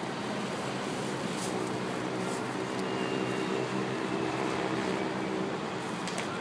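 Steady city traffic noise, with a vehicle engine's low hum coming in about a second and a half in and fading out near the end.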